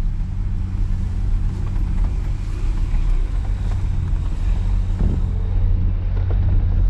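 Off-road vehicle's engine running steadily under the riders, a continuous low drone with a rumble of the ride over the terrain.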